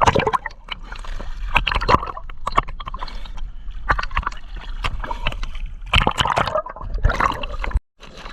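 Sea water splashing and sloshing close to the microphone as a swimmer strokes through choppy waves, in irregular bursts. The sound cuts out for a moment near the end.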